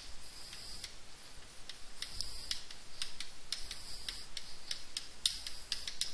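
Chalk writing on a blackboard: a run of sharp taps mixed with short, high scratching strokes.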